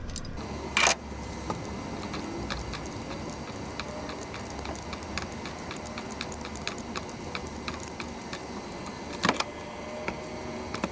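Small metallic clicks and clinks of hand tools and loose metal parts being handled, with a louder knock about a second in and another near the end.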